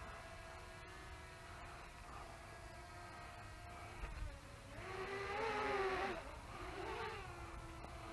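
Electric motors of a small RC aircraft giving a steady whine. About five seconds in it grows louder and the pitch swings up and down for a second or so, as the throttle changes, then it settles back to the steady whine.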